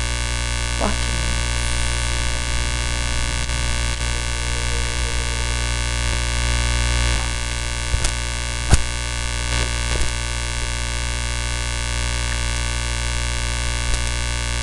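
Steady electrical hum and hiss made up of many fixed tones, with a few short clicks, the sharpest about nine seconds in.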